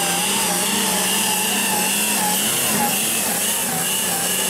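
Turbocharged diesel engine of an International Light Limited Super Stock pulling tractor running flat out under heavy load as it drags the weight sled, its pitch wavering slightly, with a steady high whine above the engine note.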